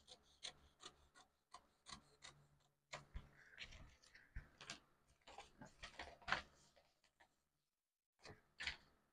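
Faint rubbing and scratching of a paper pattern being worked by hand, in a run of short irregular strokes, then a pause near the end before a last brief cluster.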